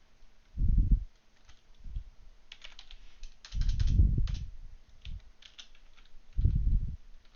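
Typing on a computer keyboard: runs of quick key clicks with pauses between them. Three short, low thumps are louder than the keys: one about a second in, one around four seconds, and one near the end.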